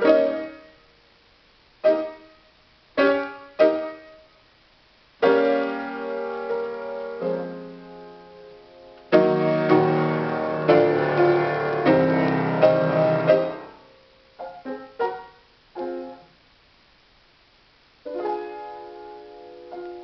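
Solo piano playing: short, detached chords with pauses between them, then a fuller passage that builds to loud, dense chords in the middle. It thins to a few sparse notes and a pause of about two seconds before the chords resume near the end.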